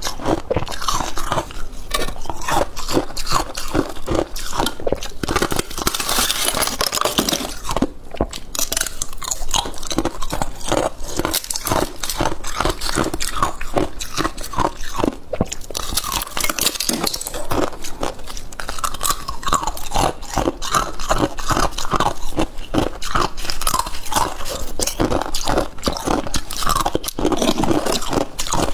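Freezer frost being chewed close to the microphone: a dense, steady run of crisp crunches.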